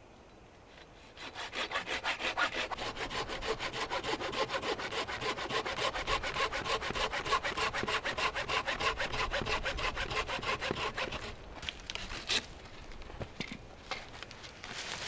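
Hand saw cutting wood with quick, even back-and-forth strokes. It starts about a second in and stops about two-thirds of the way through, followed by a few scattered knocks and clicks, one of them sharper.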